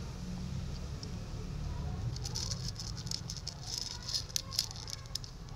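Calico cat crunching dry kibble from a paper plate: a quick, irregular run of crisp cracks, thickest in the second half, over a low steady rumble.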